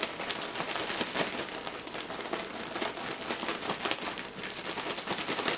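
Zip-top plastic bag of seasoned flour and cornstarch being shaken to mix the breading: a continuous, rapid crinkling and rustling of the plastic.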